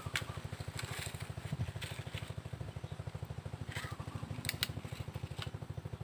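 A small engine running steadily, a low rapid putter of about a dozen beats a second, with a few sharp clicks over it.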